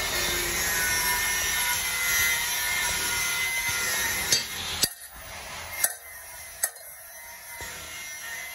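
Freshly water-quenched steel ram dao blade hissing as the water on it boils off. The hiss dies down about five seconds in, while a few sharp hammer taps ring on the blade against a small anvil.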